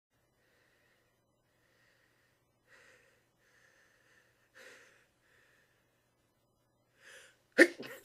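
A person's sneeze, held back: three faint, catching in-breaths build up, then a short, sharp sneeze bursts out near the end.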